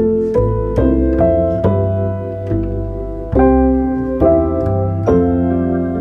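Background music on piano: a note or chord struck about once a second, each left to ring and fade over sustained lower notes.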